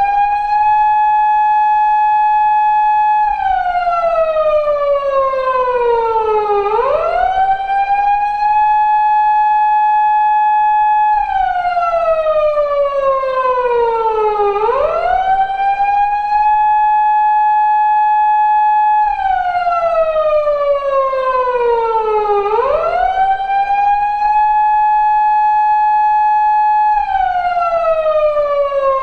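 Recreated Japanese police car siren of the 2000s type used on 170- and 180-series Toyota Crown patrol cars: a wail that rises quickly, holds a high steady tone for about two seconds, then falls slowly. The cycle repeats about every eight seconds, three and a half times here.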